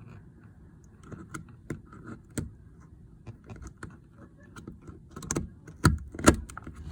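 Plastic clicks and taps from handling a Sprinter door trim panel and its window-switch wiring connectors, scattered and irregular, with two louder knocks near the end.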